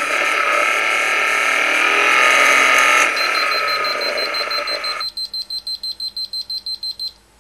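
Engine knock-sensor signal from a run with induced detonation, played back as sound, a dense mechanical noise that cuts off about five seconds in. About three seconds in, the Phormula KS-3 knock analyser's alarm starts a rapid high beeping, about six beeps a second, set off by knock above its alert threshold of 50; the beeping stops shortly before the end.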